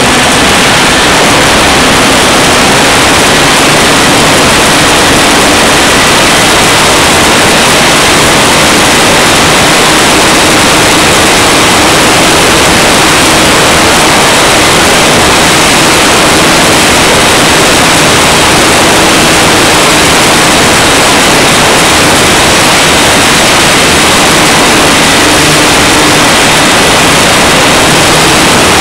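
Loud, steady rushing of airflow over an onboard camera on a radio-controlled electric sailplane in flight, with the motor-driven propeller's faint steady whine under it.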